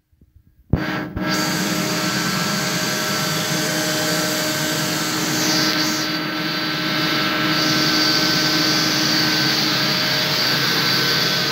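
Compressed-air system running: a loud, steady rush of air with a constant hum, starting suddenly under a second in.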